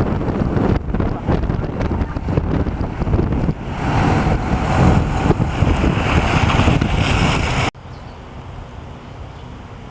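Hurricane-force wind buffeting the microphone in gusts, with a heavy low rumble, louder in the middle. Near the end it cuts abruptly to a much quieter steady hiss.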